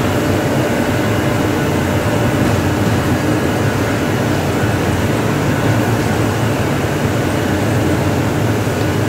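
Steady background noise with a low rumble and no distinct events, of the kind a running air conditioner or ventilation makes.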